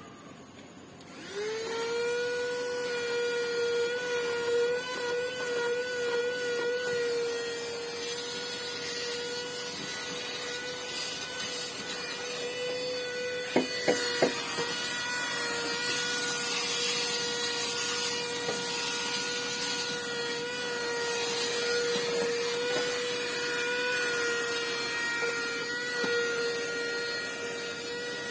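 Gaabor GVCC-M4A1 handheld car vacuum cleaner switched on about a second in, its motor running with a steady high whine over the hiss of airflow. A few sharp clicks come about halfway through.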